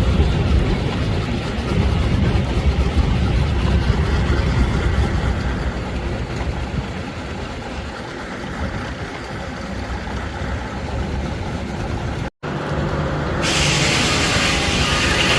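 Steam-engine-driven sawmill machinery running steadily, heaviest in the first few seconds. About twelve seconds in it cuts off abruptly, and music starts near the end.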